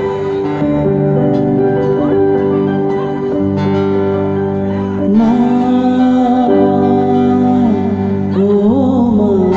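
Song with guitar accompaniment; a singing voice comes in about five seconds in with long held notes.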